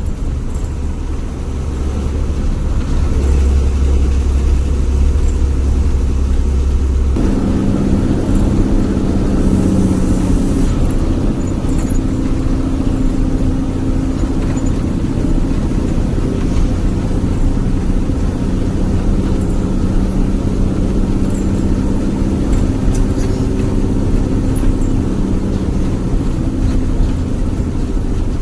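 A bus engine running under way, with the deep snoring growl ("ngorok") kept up along the road. About seven seconds in, the heavy low rumble gives way to a steadier, higher engine drone.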